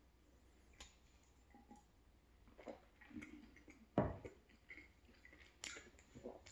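Faint, close-miked mouth sounds of swallowing milk and chewing croissant, with small clicks, and one sharp knock about four seconds in as a drinking glass is set down on the table.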